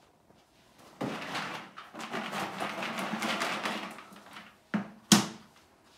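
About three seconds of handling and rustling, then two knocks, the second much louder: a ceramic dog bowl set down on a tile floor.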